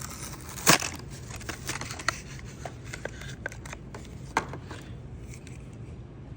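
A Hot Wheels blister package being cut and pried open by hand: a string of sharp clicks and crackles of plastic and cardboard with light scraping, the loudest click a little under a second in.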